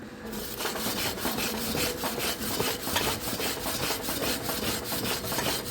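Steel wire brush scrubbing a freshly cleaned E7018 stick-weld bead, in quick back-and-forth strokes about five a second, starting a moment in, over a faint steady machine hum.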